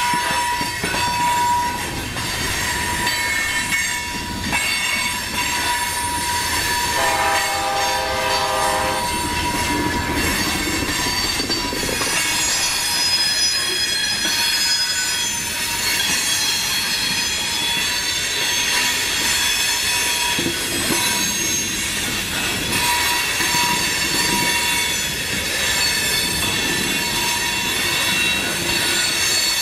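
Loaded freight hopper cars rolling past, their wheels squealing on the rail with a steady clickety-clack over the joints. A train horn sounds once for about two seconds, roughly a quarter of the way in.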